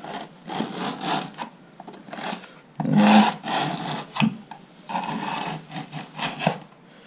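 A screwdriver scraping and digging out the inside of a composite wing through a hinge cut, in a series of uneven scraping strokes with a few sharp clicks.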